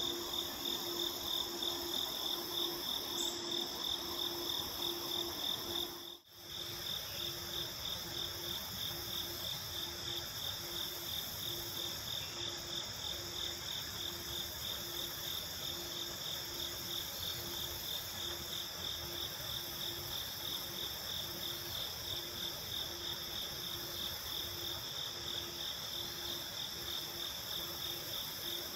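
Insect chorus: a steady, rapidly pulsing high trill with a lower note pulsing about twice a second beneath it. The sound drops out briefly about six seconds in.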